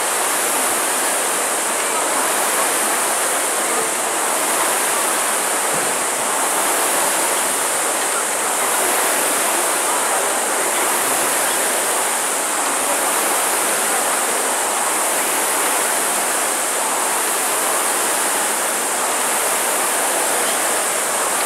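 Air-resistance flywheels of several Concept2 rowing ergometers spinning under hard racing strokes: a steady whooshing rush that swells faintly about every two seconds with the drive.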